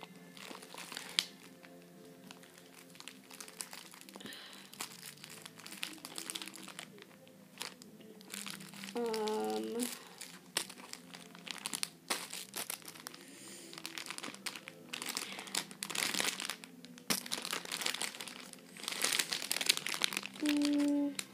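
Rustling and crinkling as squishy toys are handled and gathered up, in many small bursts. A short pitched vocal note is heard about nine seconds in, and a brief tone near the end.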